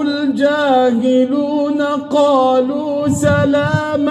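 A man chanting Quran recitation in a melodic tajweed style with no accompaniment, holding and ornamenting long notes in one drawn-out phrase.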